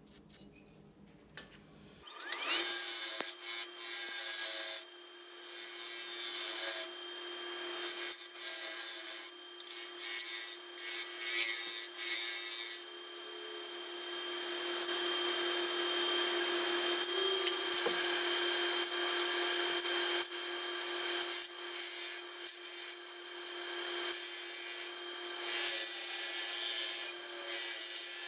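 A bowl gouge cuts a spinning brown mallee burl and epoxy resin bowl blank on a wood lathe. After about two seconds of near silence the lathe's steady hum sets in, with the rasping hiss of the cut coming in short passes, running longer through the middle, then in short passes again.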